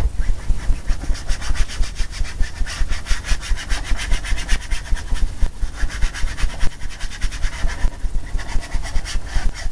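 A paintbrush scrubbing rapidly back and forth across a stretched canvas, about four to five strokes a second, working a thin coat of liquid clear medium into the surface before painting.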